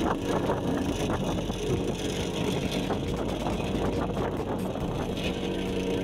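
Walk-behind vibratory plate compactor running on fresh asphalt: a steady engine drone with dense rattling and crunching from the plate working the loose mix.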